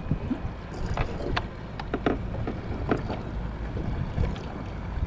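Wind and water noise around a fishing kayak on the open sea, with a handful of light clicks and knocks between about one and three seconds in.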